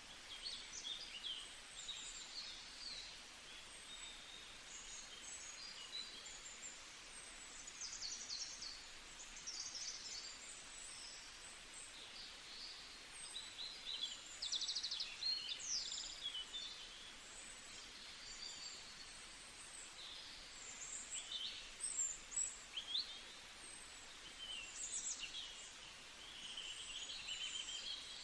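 Several songbirds chirping and singing over a steady background hiss: many short, quick calls and trills, high-pitched, overlapping throughout.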